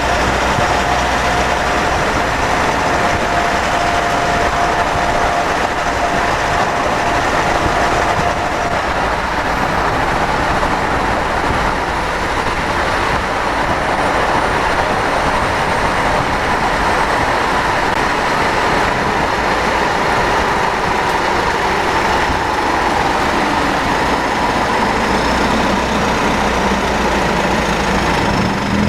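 Mitsubishi 4N15 diesel vehicle's drivetrain whining under steady running noise. The whine is a thin steady note that moves up in pitch about a third of the way in and holds there. The owner links the whine to drivetrain faults: an overfilled rear differential, burnt front differential oil and automatic transmission fluid about 1 L short.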